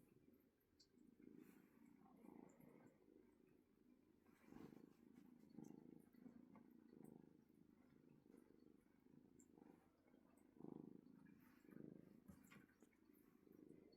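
Kitten purring faintly and steadily, the purr swelling and fading with each breath.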